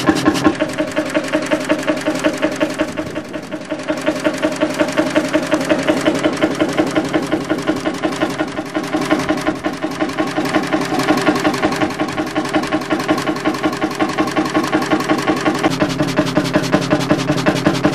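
1937 Beijer 25 HP horizontal hot bulb engine running steadily at slow speed, with an even beat of about six exhaust pulses a second.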